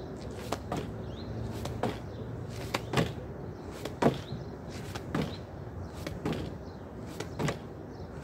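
Explosive clap push-ups on a wooden board: gloved hands slap down onto the board in a steady rhythm of about one rep a second, some reps giving a quick double knock of clap and landing.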